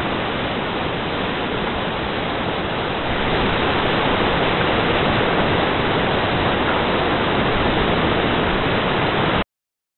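Steady rush of river rapids, a little louder about three seconds in, cutting off suddenly near the end.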